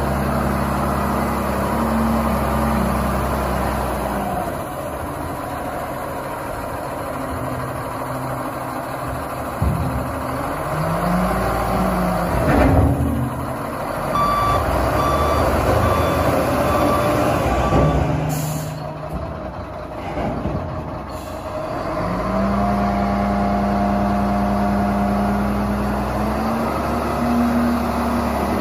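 Caterpillar 966H wheel loader's diesel engine running, its speed rising and falling as the machine is driven and the bucket is worked. A reversing alarm beeps steadily for a few seconds midway, shortly after a single sharp knock.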